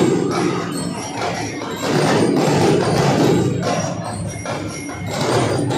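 A drum and lyre band playing: marching drums beating in a steady rhythm under the ringing notes of bell lyres.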